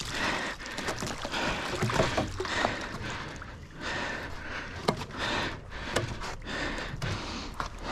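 Water splashing and streaming off a heavy wire-mesh fish trap as it is dragged up against a wooden dock, with scattered knocks and scrapes of the wire mesh and pole.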